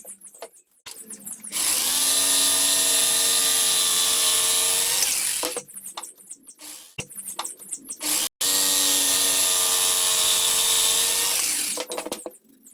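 Handheld power drill run twice, each time for about three to four seconds, its motor whine rising in pitch as it spins up. Short clicks and handling rattles come between the runs.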